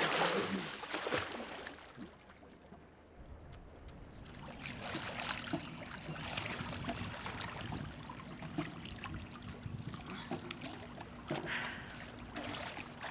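Swimming-pool water splashing and sloshing as a person struggles in it: a big splash in the first second, a quieter lull, then intermittent splashing.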